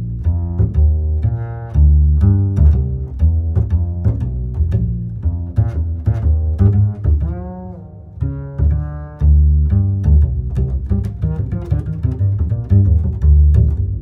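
Music with low pitched notes and frequent short sharp beats, with a brief gliding note about halfway through.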